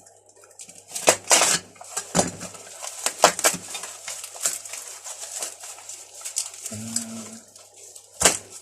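Old steel hand tools, spanners and wrenches, clinking and clanking together as they are rummaged through and lifted out, in irregular sharp knocks.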